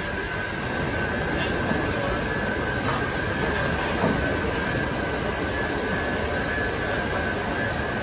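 Glass tempering furnace line running: the loading-table roller conveyor and furnace machinery give a steady, dense noise with a constant thin high whine.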